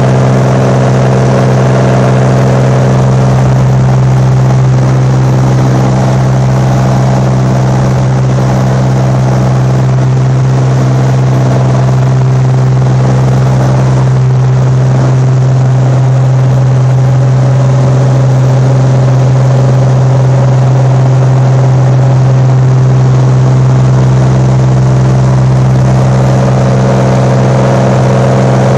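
Cirrus SR22's six-cylinder piston engine and propeller running steadily at climb power, heard inside the cabin. It is a loud, even hum with a strong low tone and its overtones.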